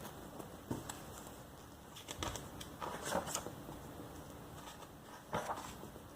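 Magazine pages being turned and handled: several short, soft paper rustles and flicks.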